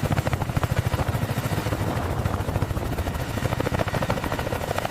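Heavy helicopter's rotor blades chopping in a fast, even beat over the steady rumble of its engines.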